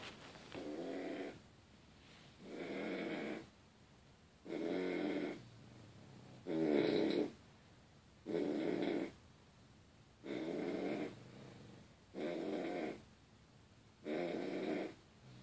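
Snoring in a steady rhythm: about eight snores, one roughly every two seconds, each lasting just under a second.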